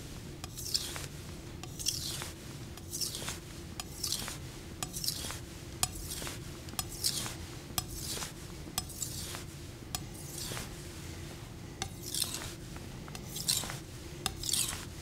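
Steel Glestain chef's knife blade being stroked across a wet Shin Nagura 3000-grit water stone, about one scraping swish per second, with small clicks between strokes.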